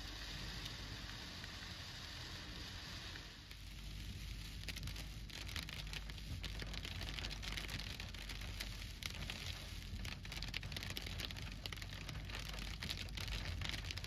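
Heavy monsoon rain, many small drops striking a surface in a dense, uneven patter, setting in about three and a half seconds in over a low steady rumble. Before that, a steady rushing noise.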